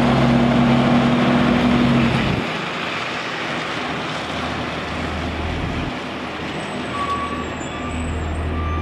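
Blue Peterbilt semi tractor's diesel engine running as it pulls an empty step-deck trailer past and away. The loud engine note drops about two seconds in, leaving a lower rumble as the truck moves off.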